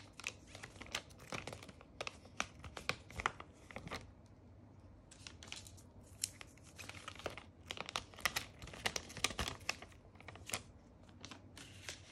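Thin plastic protective film on a new smartphone being handled and peeled, making faint, irregular crinkling and crackling rustles.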